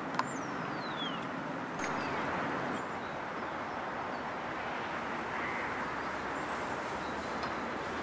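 Steady outdoor background noise with a few bird calls over it. Near the start a bird gives a thin whistle that slides down in pitch over about a second.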